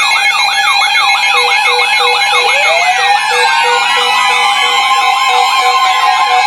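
Several NOAA weather radio receivers sounding their warning alarms at once: fast warbling siren tones about three cycles a second, a steady beeping about three times a second, and a tone sweeping upward near the middle. These alarms signal that a severe weather warning has been issued.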